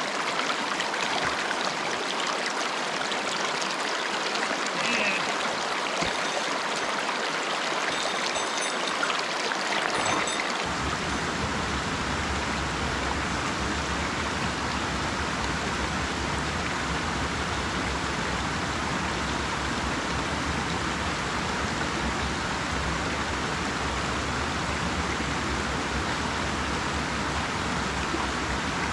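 Small mountain stream rushing over rocks and a low cascade, a steady water hiss. About ten seconds in, the sound takes on a deeper low rumble.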